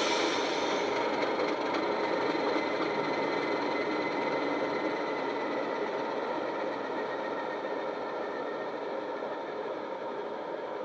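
Sound decoder in a model Class 37 diesel locomotive playing the Legomanbiffo West Highland Class 37 sound file through the model's speakers: the simulated English Electric diesel engine running at a standstill, with a short air-like hiss at the start, then slowly getting quieter.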